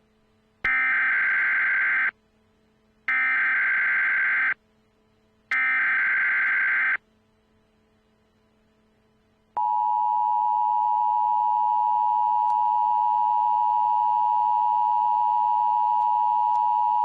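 Emergency Alert System tones: three short bursts of the digital SAME header data, each about a second and a half long, then about ten seconds in the steady two-tone EAS attention signal starts.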